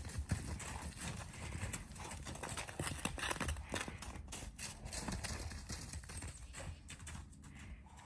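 Horses' hooves striking packed snow and frozen dirt as the horses trot and canter loosely around a paddock. The hoofbeats are irregular and grow fainter near the end as the horses move off.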